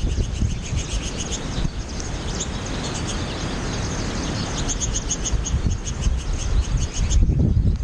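American goldfinches twittering: a run of short, high chirps, densest about five seconds in, over wind rumbling on the microphone. Near the end the chirps stop and the wind rumble gets louder.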